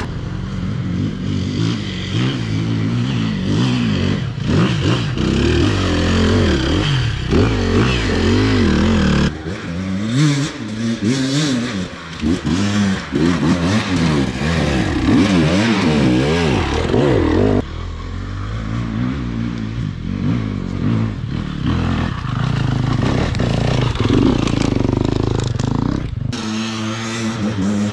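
Enduro dirt bike engines revving up and down in quick, uneven bursts, the two-stroke KTM 300 EXC among them, with clatter and scraping over rough ground. The engine sound changes abruptly a few times, as different bikes take over.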